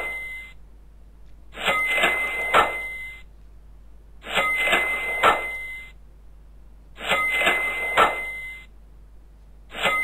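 A looped animation sound effect: a noisy burst of about a second and a half with a steady ringing tone and a few sharp clicks, repeated at even spacing about every two and a half to three seconds, four times.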